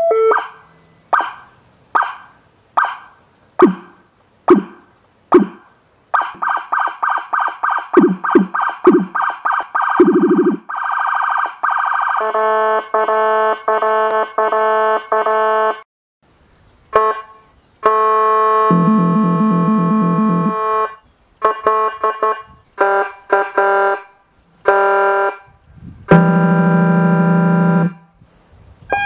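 Whelen Carbide electronic siren cycling through demo tones. It starts with short separate tones about every half second, each dying away, then rapid pulses about four a second. From about twelve seconds in it plays an electronic air horn in long steady blasts and short pulsed bursts, some with a deep pulsing low tone beneath.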